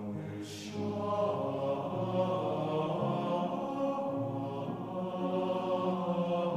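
Choral music: several voices singing long held chords that move to new chords every second or two, with a brief hiss about half a second in.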